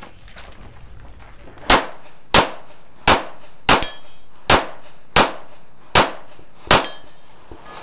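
Eight pistol shots, about one every 0.7 seconds, beginning about a second and a half in, from a Limited-division handgun fired on a practical shooting stage.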